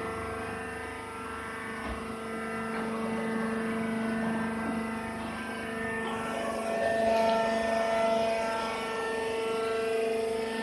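A machine running with a steady droning hum, its level swelling a little in the second half.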